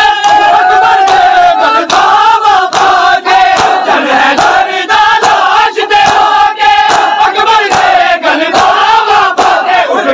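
A large crowd of men loudly chanting a nauha together, with regular slaps of hands beating on bare chests (matam) keeping time under the singing.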